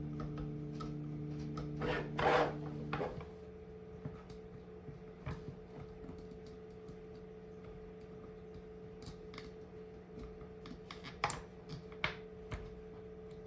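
Paracord being pulled up through the holes of a 3D-printed plastic mag holder: a rubbing, rasping pull of cord about two seconds in, then scattered light clicks and taps of handling the plastic parts. A steady low hum sits underneath, part of which stops about three seconds in.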